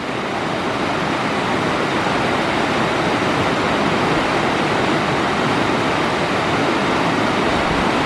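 Fast, rocky stream rushing through white-water rapids around boulders, a steady, even rush of water.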